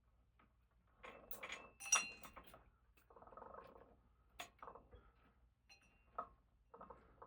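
Hand work on a ceiling fan's mounting hardware: intermittent scraping and rustling with a few sharp metallic clinks, the loudest about two seconds in.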